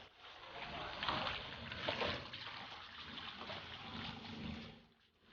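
Faint water sloshing and trickling at the pond's edge, with soft splashes, cutting out just before the end.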